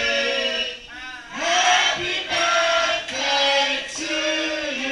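A group of men and women singing together in long held phrases, with short breaks between the lines.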